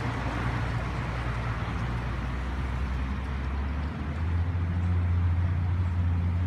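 Boat motor running steadily under a wash of water and wind noise, its hum stepping up in pitch and getting louder about four seconds in.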